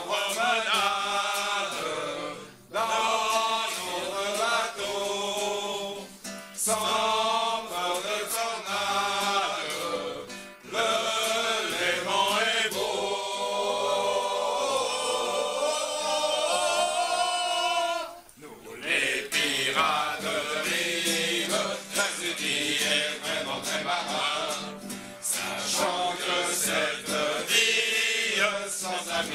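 A group of voices singing a verse of a song together, line by line, with short breaks between the phrases.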